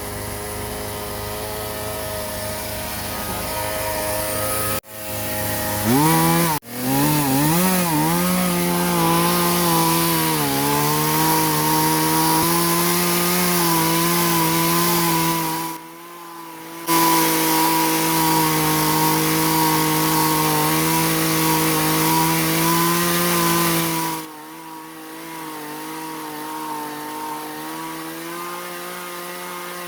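Chainsaw engine idling, then revved up about six seconds in and held at high speed, its pitch wavering at first. The revs dip briefly around the middle, and the saw drops back to idle near the end.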